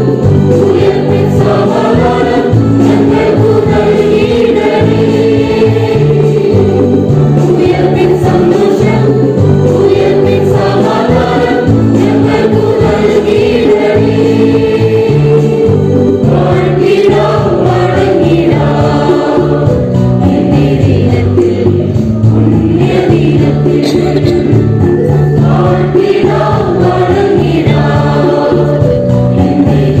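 A choir singing a Christian hymn with instrumental accompaniment, continuous and steady in level.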